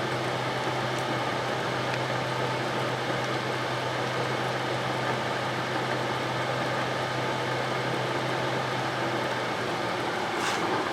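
Cylindrical grinder workhead motor running steadily, turning an ER32 collet chuck, with an even hum.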